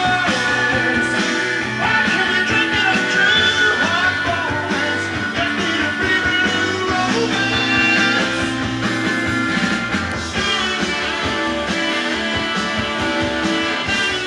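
A vinyl record playing on a Pioneer PL-L800 linear-tracking turntable: a song with singing over a steady band.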